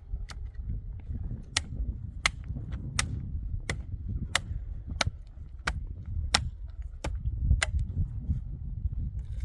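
A steady series of sharp knocks, about three every two seconds, over a low rumble.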